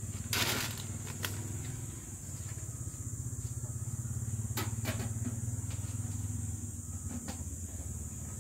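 An engine running steadily in the background, a low pulsing drone that swells through the middle. A few light clicks and rattles come from dry dog food in a metal can.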